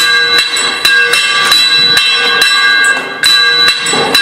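Sword-fight sound effect: repeated metallic clangs of blades striking, about two a second, each one ringing on.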